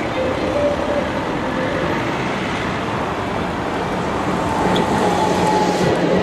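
Old articulated city bus driving past close by amid steady street traffic, loudest near the end as it goes by, with a faint steady whine from its drive.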